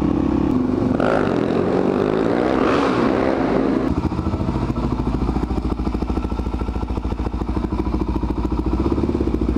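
Suzuki DR-Z400SM single-cylinder motorcycle engine, heard from the rider's seat. Its revs fall and rise while riding, then about four seconds in it switches abruptly to a steady idle.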